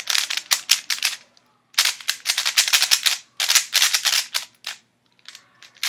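Thunderclap 3x3 plastic speed cube being turned quickly by hand: rapid clacking of the layers in three runs of a second or so each, then a few scattered clicks near the end.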